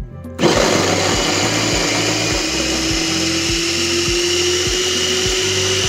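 Electric food chopper switching on about half a second in and running steadily as its blades chop peeled cassava into flakes. Its motor tone rises slowly in pitch as it runs.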